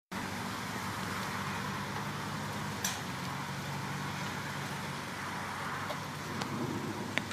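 Steady low hum of a vehicle engine running, under an even hiss, with a sharp click about three seconds in and a short tick near the end.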